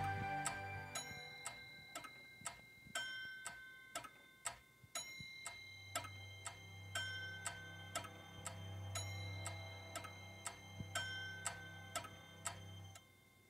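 Clock-tick sound effect of a countdown soundtrack, ticking about twice a second over a soft sustained music bed with a low hum. The music fades down at the start, and the ticking stops shortly before the end as the countdown runs out.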